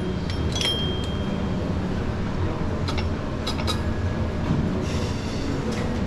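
Gym ambience: a steady low rumble with scattered metallic clinks of weights and machine parts, a few around the first second, more at about three to four seconds and near the end.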